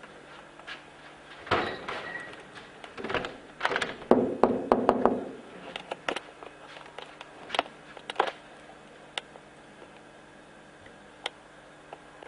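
A door being worked in a small room: a cluster of knocks, thuds and clicks in the first few seconds, then a few scattered single clicks.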